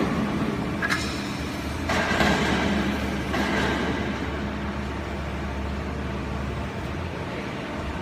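Factory machinery running with a steady low hum while a strapped coconut-fibre bale is hoisted on a crane hook. It starts suddenly. There are bursts of rustling noise about one second in and again from about two to three seconds in.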